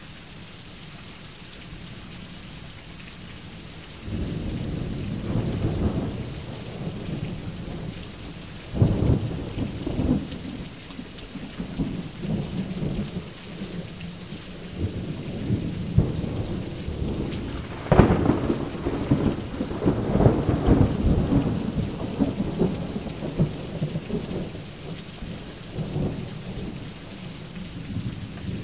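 Thunderstorm with steady heavy rain and rolling thunder. A low rumble builds about four seconds in. Sharper cracks come near nine seconds and, loudest, about two-thirds of the way through, each trailing off into a long rumble.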